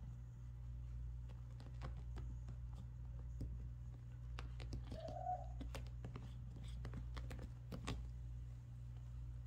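Light, scattered clicks and scratches of a kitten's claws and paws on a beaded, sequinned floor cushion, over a steady low hum. One brief faint kitten mew comes about halfway through.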